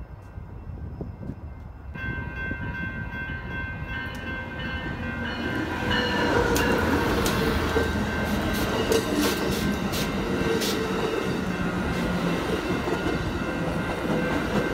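Amtrak Pacific Surfliner passenger train passing close by at a grade crossing. The rumble builds over the first few seconds and then stays loud, with sharp clacks of the wheels as the bilevel coaches roll past.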